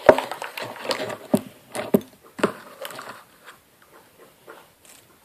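A run of irregular small clicks and knocks, a dozen or so close together in the first three seconds, then fewer and fainter.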